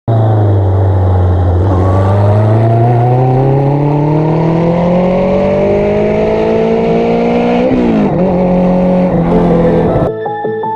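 Car engine accelerating, its pitch climbing steadily, then a quick drop like a gear change about three quarters of the way through. Music takes over near the end.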